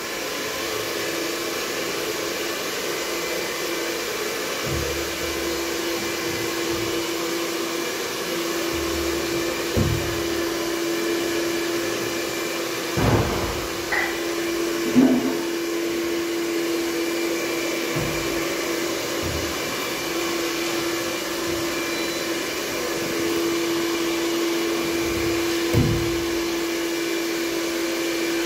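Handheld electric hair dryer running steadily with a constant whine, blowing across wet epoxy resin to push it into wave patterns. A few short low knocks sound now and then, the loudest about halfway through.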